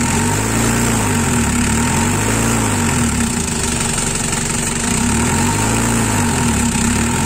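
Old Nissan Frontier diesel engine idling with the air conditioning on, its speed rising and falling in slow swells about four times. The idle-up actuator is not holding the idle because its vacuum hose has a rat-bitten leak, which is being closed off by hand to make the idle rise.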